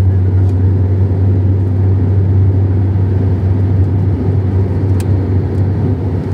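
Car cabin noise while driving: a steady low engine drone and road rumble.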